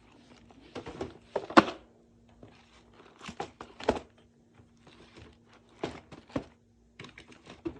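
Firework packages being handled and set down: scattered knocks and thuds with crinkling of plastic wrapping, the loudest knock about one and a half seconds in, over a faint steady hum.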